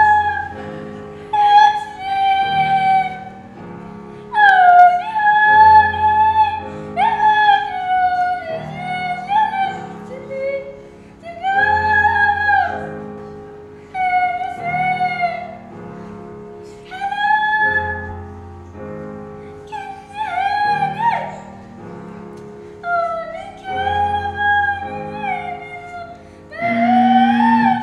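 A girl singing a slow melody into a microphone over a backing accompaniment, in short sung phrases with breaths between them.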